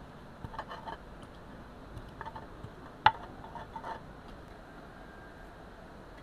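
Stone pestle knocking and tapping against a stone mortar while spices are ground: a few light clicks and one sharp knock about three seconds in.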